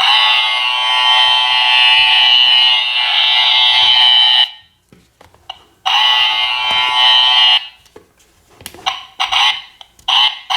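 Play-Doh Buzz 'n Cut toy's electric clipper buzzing steadily as it cuts Play-Doh hair: it runs for about four and a half seconds, stops, buzzes again briefly, and starts once more near the end, with a few light plastic taps in the pauses.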